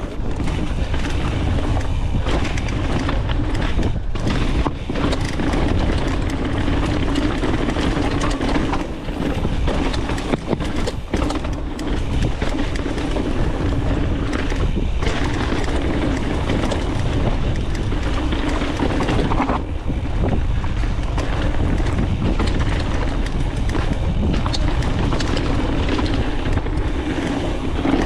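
Specialized Stumpjumper full-suspension mountain bike running fast down a dirt trail: a steady rush of wind on the microphone and tyres on the ground, with frequent sharp knocks and rattles as the bike hits bumps and roots.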